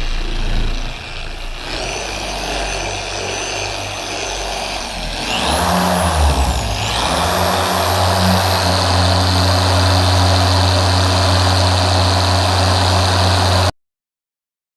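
Machine polisher running on car paint, spreading polish at a lower speed, then winding up a few seconds in to a louder, steady run. The sound cuts off abruptly near the end.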